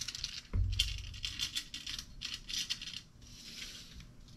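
A steel tape measure being pulled out and handled along a length of square steel tubing: a thump about half a second in, then a run of light clicks and rattles from the tape blade.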